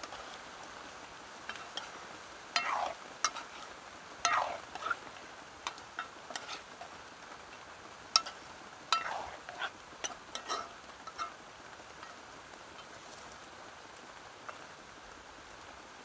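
Steady rain, with a run of short scrapes and knocks of a utensil working in a cooking pot from about 1.5 s to 11 s in.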